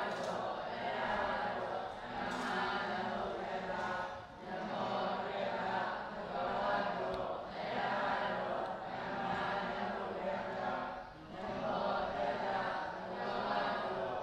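A group of voices chanting a Pali Buddhist recitation in unison, in long phrases broken by two short pauses.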